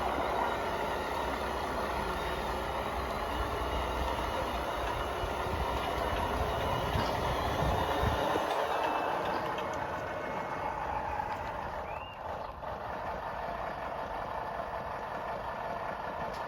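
Radio-controlled model truck running, with a steady mechanical whirring and a low rumble that stops about eight seconds in. A brief rising whine comes near the end.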